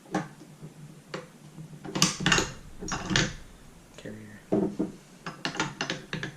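Metal clicks and clacks of an SKS rifle's bolt carrier and bolt being slid out of the receiver and handled, a string of sharp knocks with the loudest about two to three seconds in and another run near the end.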